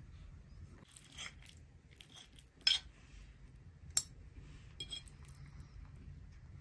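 Knife and fork on a china plate cutting into a crisp-edged baked pasta dish: a few short crunches and scrapes, with one sharp clink of metal on porcelain about four seconds in and a few lighter clinks just after.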